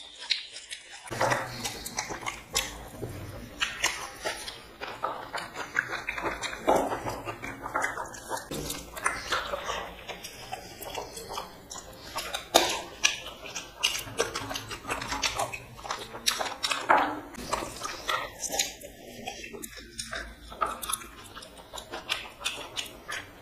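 Close-up eating sounds of mutton biryani eaten by hand: chewing and lip smacking, with many short, irregular clicks.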